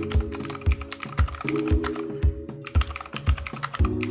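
Rapid typing on a computer keyboard, a quick run of key clicks, over background music with sustained chords and a steady low beat.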